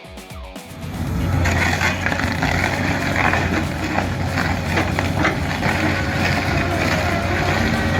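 Heavy machine's engine running steadily with a low hum and scattered crackles, starting loud about a second in as the music before it cuts away.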